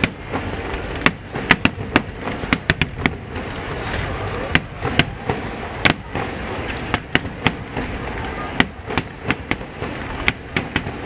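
Aerial fireworks shells going off: many sharp bangs and cracks at irregular intervals, several a second in the busiest stretches, over a steady background wash of noise.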